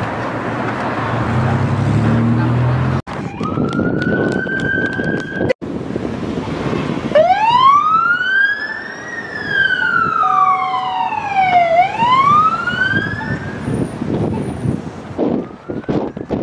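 Vehicle engine and traffic noise, cut off abruptly twice, then a police car's siren in a slow wail, gliding up, down and up again with each sweep taking about two to three seconds.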